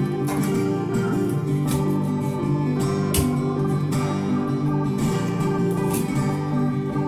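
Background music: plucked acoustic guitar with a steady beat.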